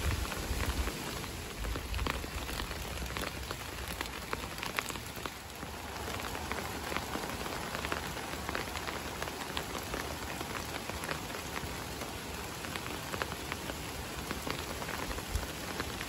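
Steady rain falling, with many separate drops ticking close by.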